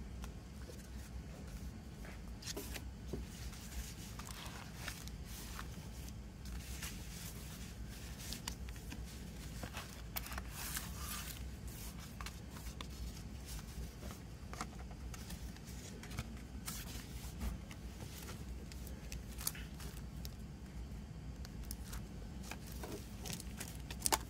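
CD packaging being handled: paper booklet, cardboard insert and discs in plastic sleeves giving scattered rustles, slides and light taps, with a sharper click near the end, over a steady low hum.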